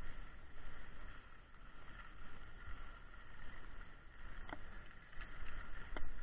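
Skis sliding over snow with a steady hiss while the skier is towed uphill on a pole drag lift, under a low rumble. Two sharp clicks stand out, about four and a half and six seconds in.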